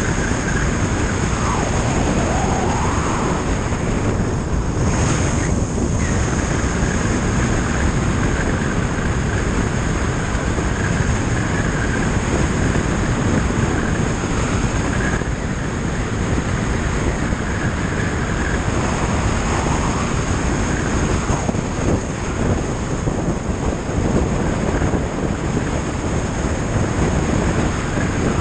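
Steady wind rush over the microphone mixed with motorcycle engine and tyre noise, at a constant cruising speed on the open road.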